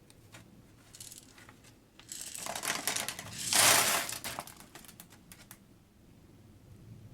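Brown paper lunch bag crinkling as oiled popcorn kernels are poured into it: a rattling rush, loudest about three and a half seconds in, with scattered ticks and rustles before and after.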